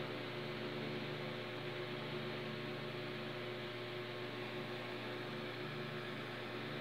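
Steady low hum with an even hiss; no snips of the nippers stand out.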